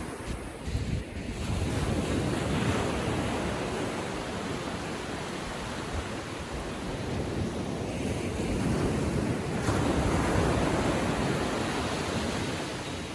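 Gentle ocean surf washing onto the beach, a steady rush that swells as waves break about two seconds in and again around ten seconds in.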